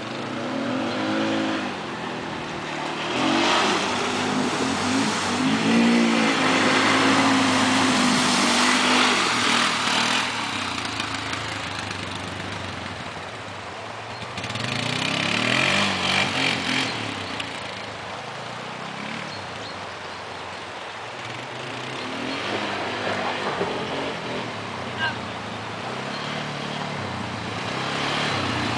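Polaris ATV engines running and revving as the quad bikes drive along a dirt trail, the pitch rising and falling several times, over a steady rush of creek water.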